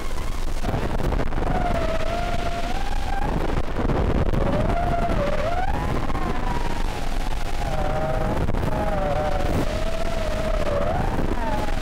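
Brushless motors of an FPV racing quadcopter (Emax RS2205-S 2600kv with DAL 5046 tri-blade props) whining over rough, buzzing noise, the pitch swooping up and down as the throttle changes through turns.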